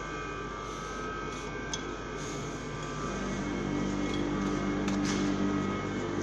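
Steady hum of workshop machinery running, with a few fixed whining tones over a low drone, growing louder about halfway through. A couple of short clicks and knocks as the wooden slab is handled on the slicer bed.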